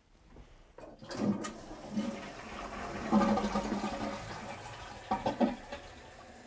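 Toilet flushing: rushing water starts about a second in, swells to its loudest midway and slowly tails off, with a few short surges near the end.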